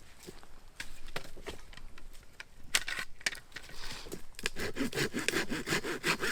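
Dead wood being worked by hand: scattered sharp snaps at first, then, from about four and a half seconds in, the fast, even back-and-forth rasp of a hand saw cutting through it.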